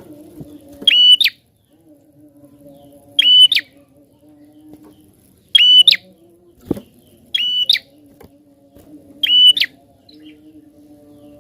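A prinia (prenjak) giving short, sharp chirping calls five times, about two seconds apart. A faint low steady hum runs underneath, and a single click comes about two-thirds of the way in.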